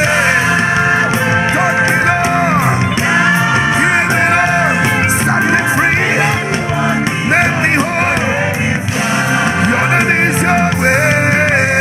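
Live praise and worship music: a band playing with voices singing.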